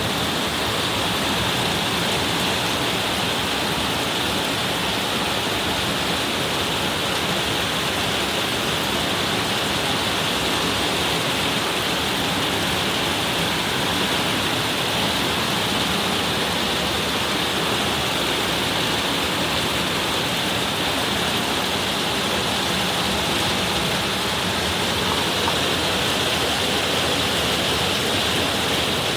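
Heavy rain pouring down steadily in an even, unbroken hiss.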